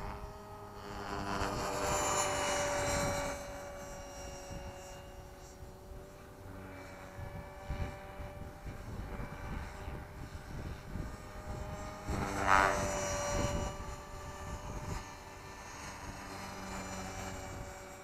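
Tarot 450 electric RC helicopter flying, its motor and rotor giving a steady whine that swells louder as it comes close about two seconds in and again about twelve seconds in. Wind gusts rumble on the microphone throughout.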